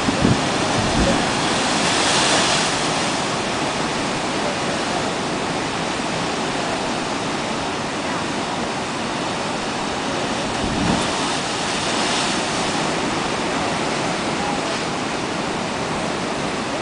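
Ocean waves surging and breaking into a narrow rock crevice: a steady rush of surf that swells twice, with a few low thuds, the strongest near the start and another just before the middle.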